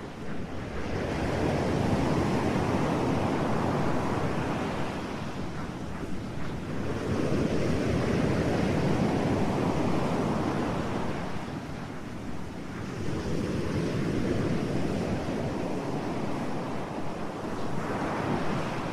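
Ocean waves washing in and receding, swelling and easing about every five or six seconds.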